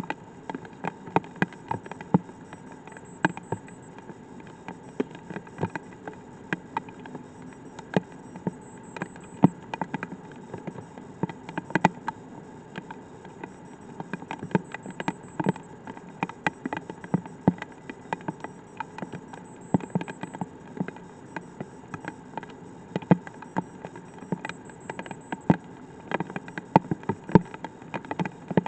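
Light rain, with drops tapping close to the microphone as irregular sharp clicks, several a second, over a steady low background hiss.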